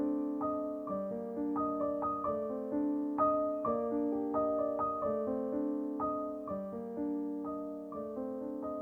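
Background solo piano music: a slow, flowing run of notes, each struck and left to ring as it fades.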